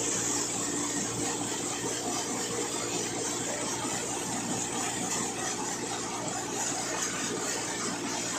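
Tractor-driven threshing machine running while fed with crop, its belt-driven drum and blower making a steady, dense whir over the hum of the tractor engine that powers it.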